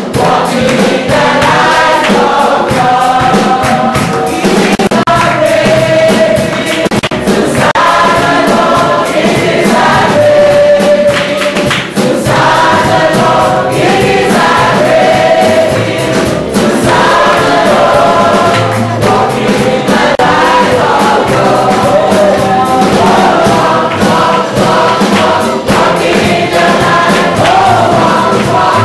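Gospel choir singing a worship song with band accompaniment and a steady beat.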